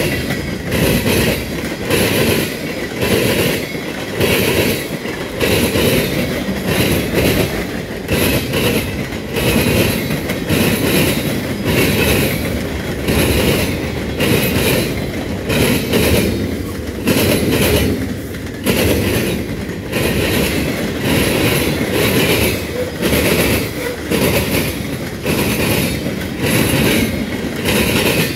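Freight train boxcars and tank cars rolling past close by: a steady rumble, with the wheels clacking over the rail joints in a regular repeating rhythm.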